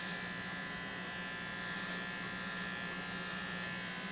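Remington corded electric hair clippers running with a steady buzz, with a few brief hissy surges.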